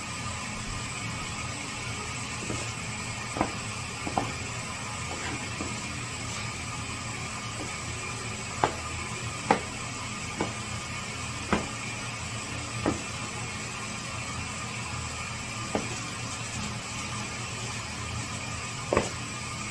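A steady machine hum with a few fixed tones, broken by about a dozen sharp clicks or taps at irregular intervals.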